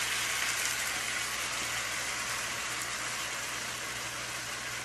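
Chicken, peppers and pineapple sizzling in a hot stir-fry pan as the sauce is stirred in; a steady sizzle that eases slightly.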